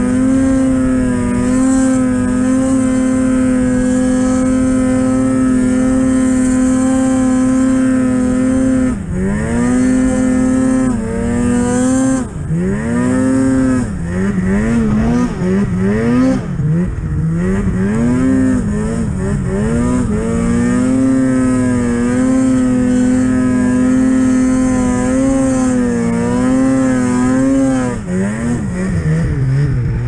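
Snowmobile engine running at high revs while the sled ploughs through deep powder. The engine note is held steady for the first third, then rises and falls repeatedly as the throttle is worked, settles again, and drops away near the end.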